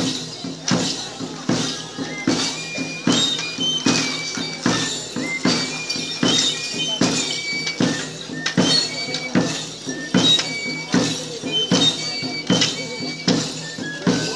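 Yumbada pipe-and-drum music: a high, stepping melody on a pingullo (small three-hole pipe) over a steady, evenly spaced drum beat.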